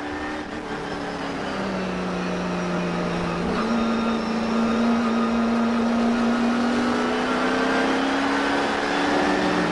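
Slot car's small electric motor whining as the car laps the track, over a steady rattle of the car running in the slot. The pitch dips about a second and a half in, steps up past three seconds, then slowly climbs.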